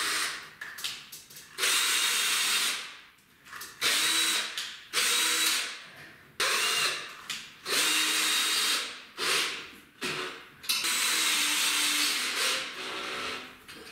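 Cordless drill-driver running in repeated short spurts of a second or two each, with short pauses between them, driving self-tapping screws through a metal ceiling guide profile into the wall.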